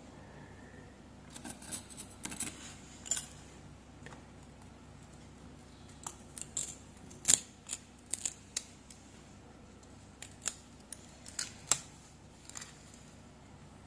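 Aluminium foil tape crinkling and crackling as it is peeled off a circuit board with tweezers, in scattered short clicks.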